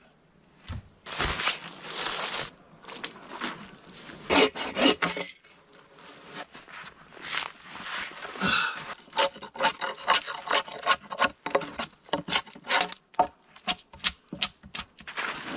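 Irregular rubbing and scraping strokes, sparse at first and then quicker and denser from about halfway through.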